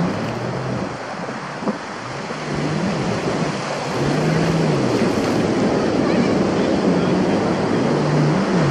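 Ocean surf washing up a beach, a steady rush of water and foam. Under it, a low tone that wavers up and down comes and goes a few times.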